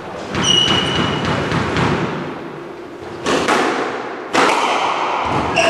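A squash rally: the ball is struck by rackets and smacks off the court walls in a series of sharp hits, a second or more apart. Between the hits, court shoes squeak briefly on the wooden floor.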